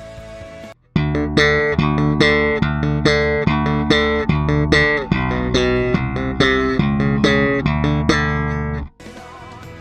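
Fender Jazz Bass played slap-style through the Boss GT-1B's Orange compressor type: a riff of sharp, percussive slapped notes that starts about a second in and stops abruptly near the end.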